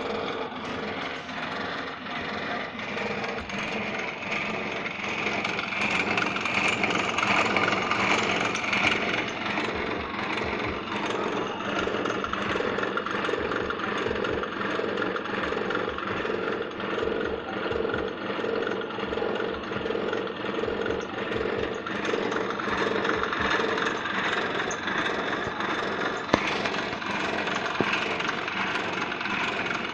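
Homemade pedestal drill press running: its electric motor keeps a steady hum with a fast, continuous rattle from the machine.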